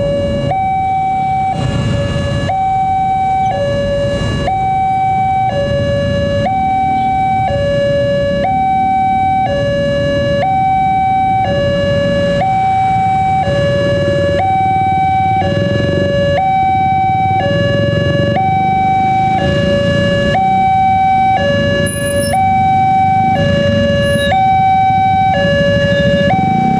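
Railway level crossing warning alarm sounding its two-tone chime, alternating steadily between a higher and a lower tone: the crossing is closed for an approaching train. The low rumble of waiting motorcycles and cars lies underneath.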